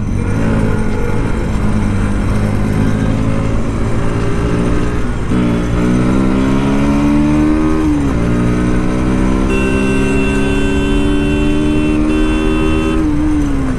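Bajaj Pulsar NS125's single-cylinder engine under way, revs climbing and then falling back twice as it shifts up, over steady road and wind rumble. A steady high-pitched tone sounds over it for a few seconds after halfway.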